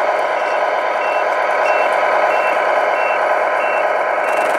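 Tamiya Globe Liner RC truck's MFC-01 sound unit playing a reversing beeper, a short high beep about every 0.6 s, over its steady simulated truck-engine sound while the truck backs up.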